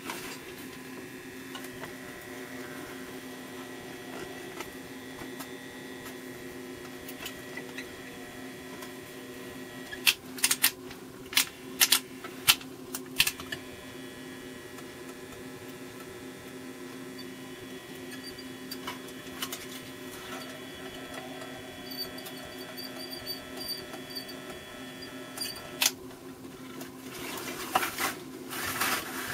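Soldering gun humming steadily while it heats a joint. About ten seconds in comes a quick run of sharp clicks and knocks, and a few more near the end as the metal chassis is handled.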